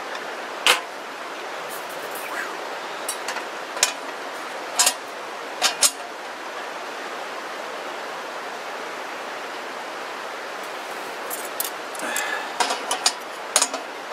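Galvanized sheet-steel panels and steel grate parts of a folding portable fire-pit grill clanking and clicking as they are fitted together: a few sharp metal knocks spread through the first six seconds, then a quicker run of clicks and taps near the end, over a steady background hiss.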